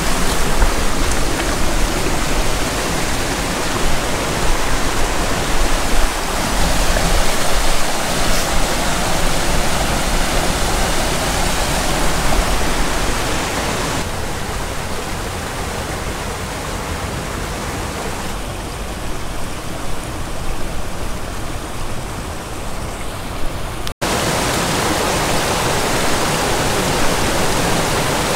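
Mountain stream rushing and splashing over boulders in small cascades, a steady, loud noise of running water, briefly cut off about 24 seconds in.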